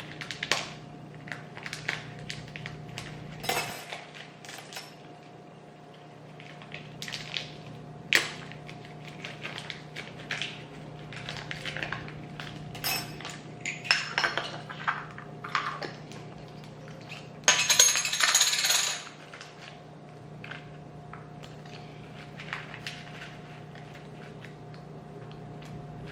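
Small objects clicking and clinking as things are handled and rummaged through, with a brief loud rustle about eighteen seconds in. A steady faint hum runs underneath.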